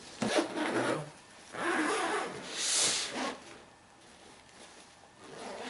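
A padded nylon carry bag being handled and unzipped: fabric rubbing and a zipper being drawn. The noise is loudest from about one and a half to three seconds in, then quieter.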